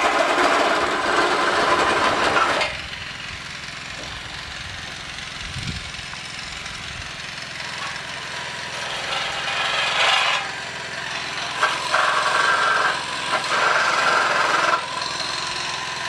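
A power tool cutting into a gutter pipe in separate runs: one that stops abruptly near three seconds in, then several shorter runs in the second half.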